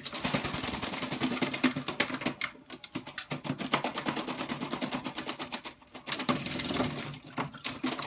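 Black-capped lory bathing in a plastic water dish, fluttering its wings in the water: a rapid run of splashing patters, with a few short breaks.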